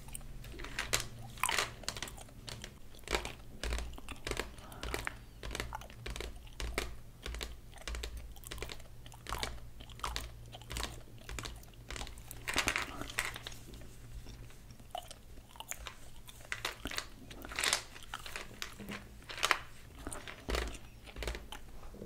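Long fingernails tapping and scratching on a plastic Mentos gum bottle and its flip-top lid, making irregular sharp clicks and taps about one or two a second.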